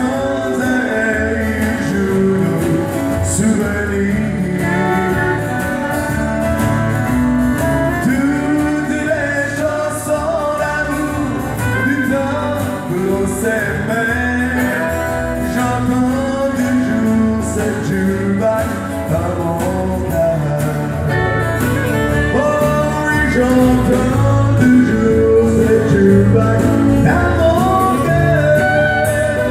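Live country music: a man sings over a strummed acoustic guitar with the band playing along.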